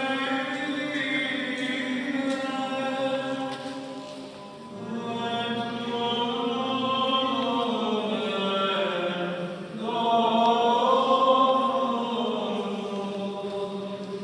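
Orthodox liturgical chant sung by church singers in long held notes. The singing dips briefly about four and a half seconds in, then swells to its loudest just after the middle.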